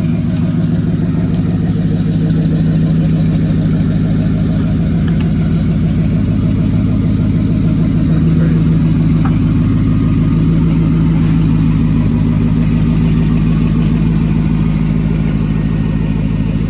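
A vehicle engine idling steadily and loudly, a deep even rumble that holds without revving.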